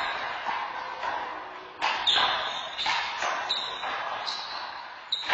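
Handball rally: a small rubber handball smacked by hands and hitting the wall and floor, several sharp smacks about a second apart, echoing in a large hall.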